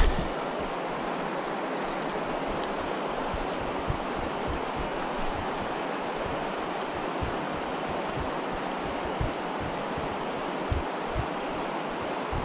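Steady rush of flowing river water, with a constant high insect drone above it and scattered low thumps.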